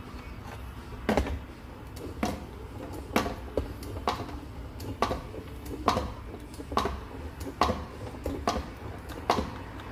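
Ratchet wrench clicking in short repeated strokes, about one sharp click a second, as a plug in the MG3's gearbox casing is screwed back in after the gearbox is filled with oil.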